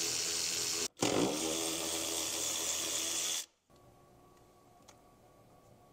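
Electric power-seat motors in a BMW E46 front seat running, driving the seat along its track: a short run, a brief stop, then a second run of about two and a half seconds that cuts off suddenly. Faint room tone and a few light ticks follow.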